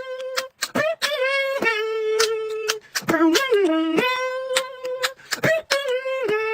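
A person's voice making mouth sound effects: held, sung notes that dip and bend in pitch, cut by many sharp mouth clicks and pops.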